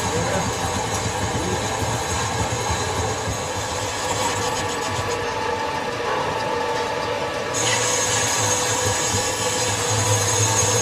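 Metal lathe running in a workshop: a steady machine drone with a low hum, the higher hiss changing abruptly about seven and a half seconds in.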